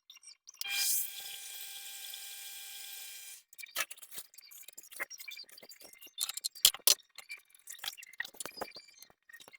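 Small metal lathe running with a steady whine, louder just before one second in, stopping about three and a half seconds in. After that come irregular metallic clicks and clinks.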